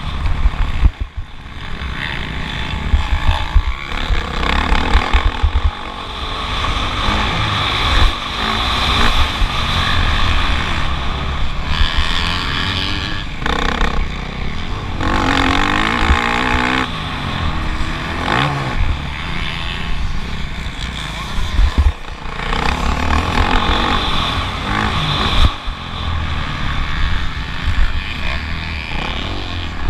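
Motocross bike engine under race throttle, revving up and dropping back repeatedly, loudest about halfway through. Heavy wind buffeting and bumps rumble on the on-board action camera's microphone.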